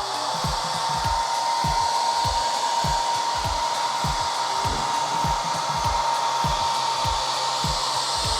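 Handheld hair dryer running steadily, its air rush carrying a steady motor whine, with a regular low beat about twice a second beneath it.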